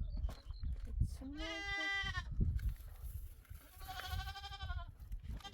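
Goat bleating twice: two long, wavering calls of about a second each, the second starting roughly two seconds after the first.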